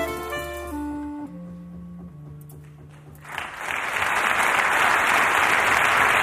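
A band's closing notes: a few held tones stepping down and dying away, then an audience breaks into applause about three seconds in.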